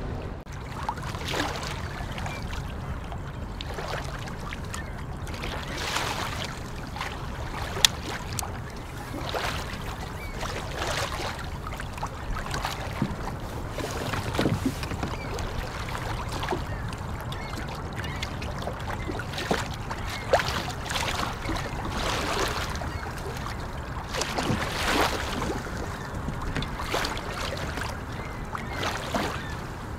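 Small waves lapping against a fishing kayak's hull, a soft splash every few seconds over a low steady background, with two sharp clicks.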